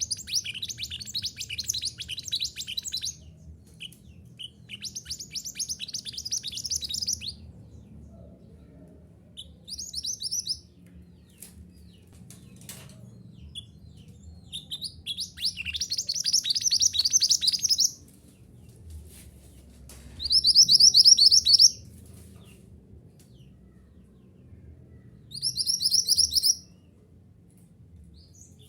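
Mantenan gunung songbird singing in separate bursts of rapid, high chirping trills, each phrase lasting one to three seconds with pauses between, over a faint low hum.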